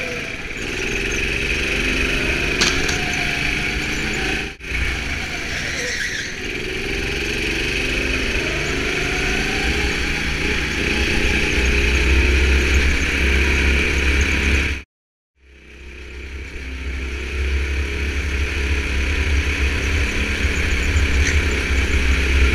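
Rental go-kart's 9-horsepower engine running hard through a lap, its pitch climbing again and again as it accelerates out of the corners. The sound cuts out completely for about half a second two-thirds of the way through.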